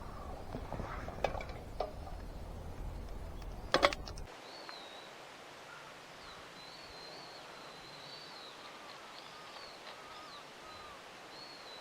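Wild birds calling outdoors in thin, wavering high notes. For the first four seconds there is a low rumble and a few sharp clicks, the loudest just before the rumble cuts off abruptly; after that only the bird calls remain over a quiet background.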